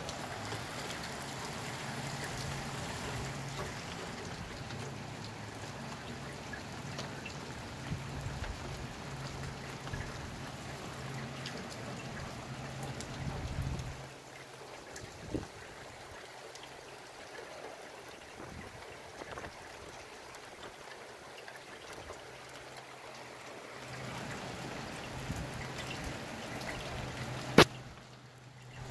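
Steady rain with dripping and trickling water. A low hum sits under it, drops away about halfway through and returns near the end. A single sharp click near the end is the loudest sound.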